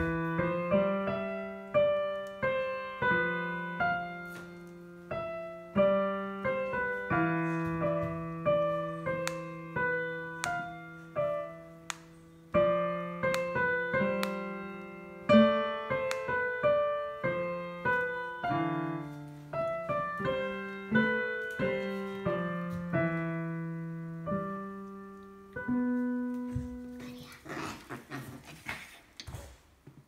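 Solo piano music: a slow melody over chords, each note struck and fading. Near the end the notes stop briefly and a short rustling noise is heard, before the playing starts again.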